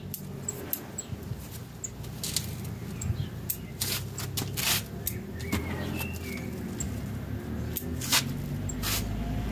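Bonsai scissors snipping shoots and leaves off a Chinese privet: about ten short, sharp snips at irregular intervals, over a low steady hum.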